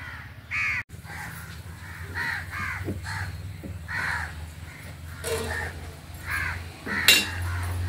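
Crows cawing repeatedly, call after call, with a sharp knock near the end.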